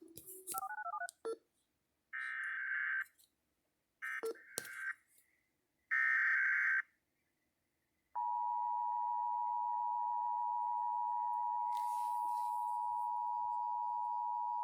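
Emergency Alert System test signal: a short run of quick two-note beeps, then three separate roughly one-second screeching bursts of the SAME digital header, then the steady two-tone EAS attention signal, which starts a little over halfway through and holds.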